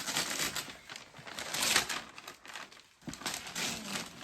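Gift wrapping paper rustling and crinkling in irregular bursts as a present is unwrapped, the loudest burst about one and a half seconds in.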